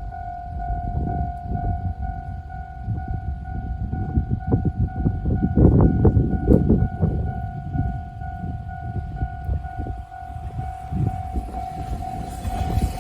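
Japanese railway level-crossing alarm ringing, a steady repeating electronic tone, while a train rumbles through the crossing with its wheels clacking, loudest about six seconds in.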